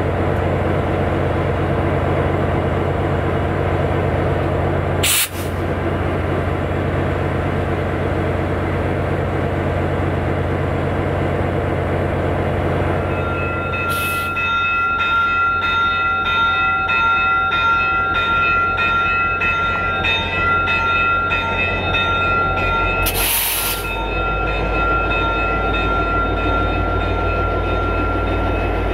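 Diesel-hauled train running past, a steady low rumble of locomotive engines and rolling cars, broken by a few abrupt cuts. From about halfway a steady high ringing tone with a regular beat sounds over it.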